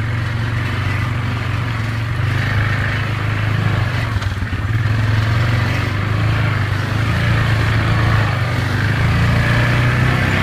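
ATV engine running steadily while the quad is ridden along a muddy dirt trail, heard from the rider's seat, getting a little louder about halfway through.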